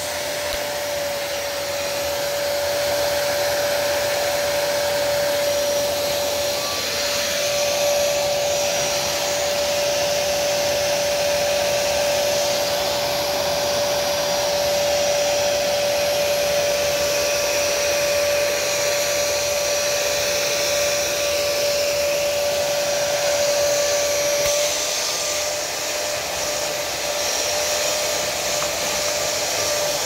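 Hoover PowerDash GO pet spot cleaner's suction motor running with a steady whine and hiss as its hand tool is worked over damp carpet. The whine weakens slightly about 25 seconds in.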